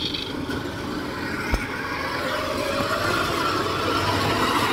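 The engine of a small tracked rice-sack carrier runs steadily as the machine crawls through a muddy paddy, growing gradually louder. One short knock comes about a second and a half in.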